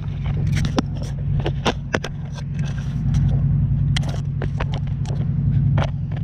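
An engine running steadily, with many short knocks and scrapes of the camera being handled and set down.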